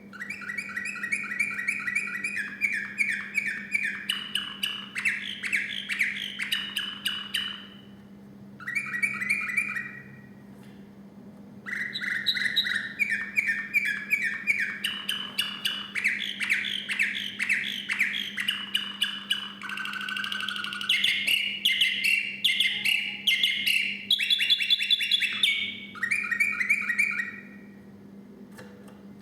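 Song canary singing long phrases of rapidly repeated trilled notes, each run at its own pitch. There is a short break about 8 seconds in, a longer one around 10 to 12 seconds, and the song stops about two seconds before the end. A steady low hum runs underneath.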